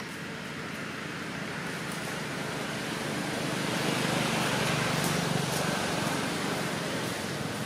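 A motor vehicle passing on a nearby road. Its engine and tyre noise grows louder toward a peak about halfway through and then slowly fades.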